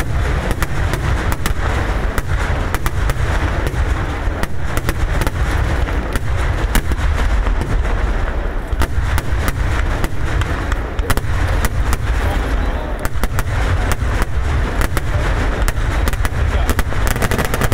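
Fireworks barrage: a dense, rapid string of firecracker blasts, many bangs a second, over a continuous deep rumble.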